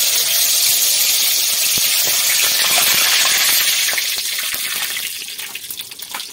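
Whole cumin seeds and bay leaves sizzling in hot rice bran oil in an aluminium kadai. The sizzle is loud at first, then dies down after about four seconds to scattered crackles.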